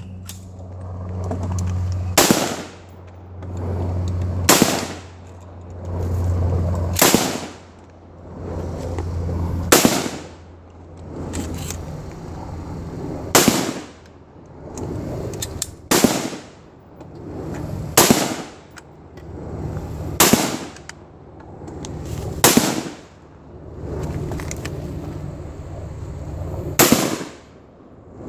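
AR-15 patrol rifle fired in single shots, about ten in all, spaced roughly two to three seconds apart.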